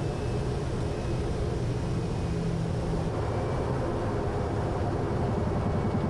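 Kodiak 100's Pratt & Whitney PT6A turboprop running at low power while the airplane rolls along the runway after touchdown, a steady drone with a low rumble that grows stronger about halfway through.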